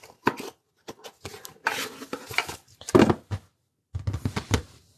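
A collectible mystery box being handled and opened by hand: irregular knocks, scrapes and rustles, the loudest about three seconds in.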